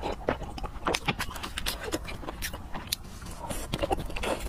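Close-miked mouth sounds of drinking and eating: gulping from a glass, then chewing food taken from a fork, in many short irregular clicks and smacks.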